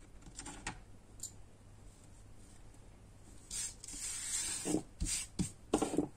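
Hands handling small wooden and paper craft pieces on a cutting mat: a few faint light clicks, then, a little past halfway, a short rustle and several sharper taps.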